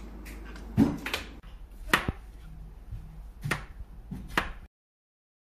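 A kitchen knife chopping food on a plastic cutting board: five sharp, unevenly spaced knocks over a faint hum, then the sound cuts off abruptly about four and a half seconds in.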